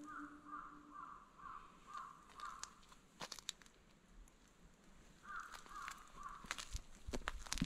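A crow cawing in a series of even calls, about two a second, then pausing and cawing a few more times. Near the end come a few crackles and crunches of dry leaves.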